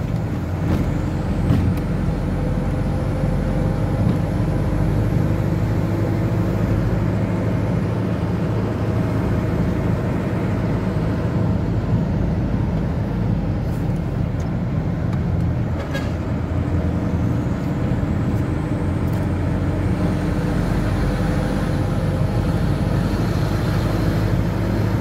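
Steady engine drone and tyre noise of a moving vehicle, heard from inside its cabin, with one short click about two-thirds of the way through.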